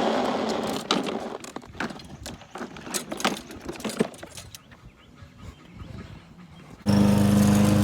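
Scattered light clicks and knocks. About seven seconds in, a push lawn mower's small engine cuts in abruptly and runs steadily at full loudness.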